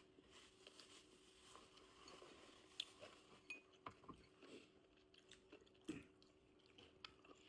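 Near silence, with faint, scattered chewing and crunching sounds of a person eating, a few soft clicks a second or so apart, over a faint steady hum.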